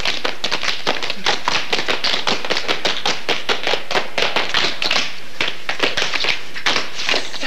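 A group of tap dancers' metal-plated tap shoes striking a hard studio floor in a fast, dense, unbroken run of taps.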